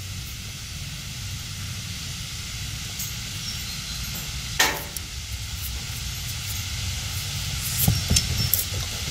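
Wind on the microphone: a steady low rumble with hiss. A single sharp swish about halfway through, and a few short taps and thuds near the end.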